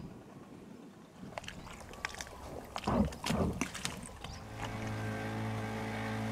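Small outboard motor on a flat-bottomed fishing boat running steadily at an even pitch, starting about four and a half seconds in. Before it come a few knocks and clatter.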